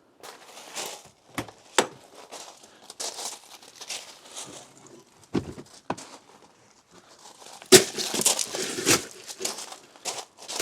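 Irregular rustling and crinkling at close range, broken by a few sharp knocks, loudest in a busy stretch about three-quarters of the way through.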